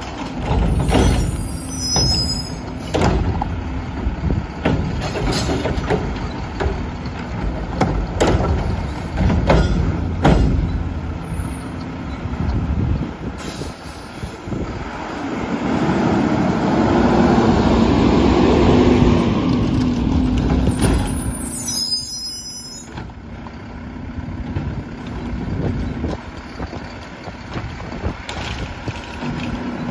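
Garbage truck with a Curotto-Can automated cart arm working a curbside pickup: the diesel engine runs throughout while carts and the arm knock and clank. For several seconds in the middle the engine and hydraulics run louder, and the air brakes hiss near the start and again about 22 seconds in.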